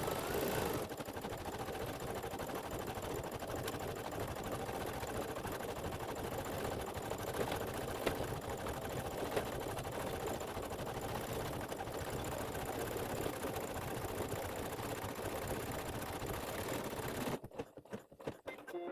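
Embroidery machine stitching out a design at speed, a steady, fast needle rattle. It stops about seventeen seconds in, and a few short broken sounds follow.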